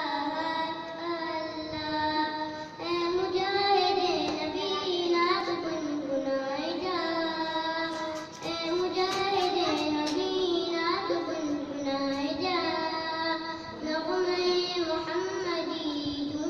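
A young boy singing Islamic devotional verse solo into a handheld microphone, in long held notes that waver and bend in pitch, the phrases separated by brief breaths.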